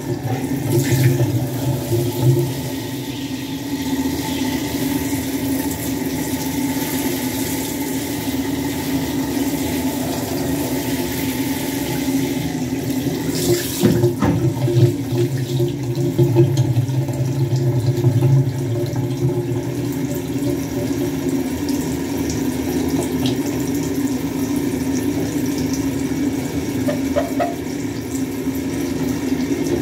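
Handheld shower sprayer running steadily, water spraying over a wet chicken and splashing into a bathtub. One brief knock about halfway through.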